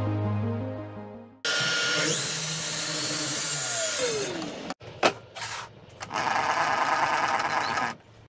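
Background music fades out, then a Makita miter saw starts with a rising whine and cuts through an MDF board, its pitch falling as it winds down. After a few short knocks, a table saw cuts the MDF for about two seconds.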